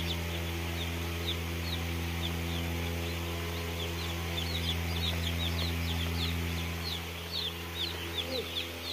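Broiler chicks cheeping, many short high falling peeps that come thicker after about four seconds. Under them runs a steady low hum that fades away about seven seconds in.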